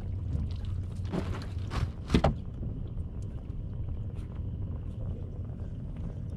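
Steady low rumble on a bass boat's deck, with a few short knocks about one and two seconds in, the loudest just after two seconds, as a landing net is set down on the deck.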